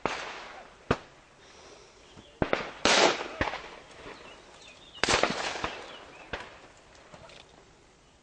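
Shotgun reports echoing across a sporting clay-shooting ground: about eight shots of varying loudness, the loudest around three and five seconds in, each trailing off in an echo.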